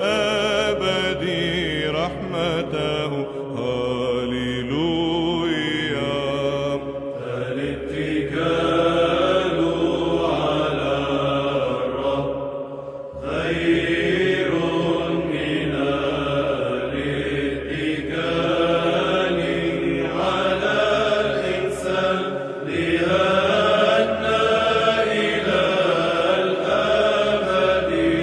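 Slow Arabic Orthodox psalm chant: a voice singing long held, melismatic notes over a steady low drone.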